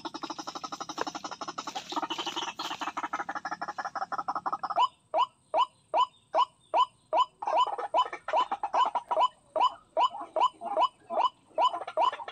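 White-breasted waterhen calls, played as a decoy lure to draw the birds to the trap: a fast chatter of rapid pulses for the first five seconds, then a run of short repeated calls, about three a second.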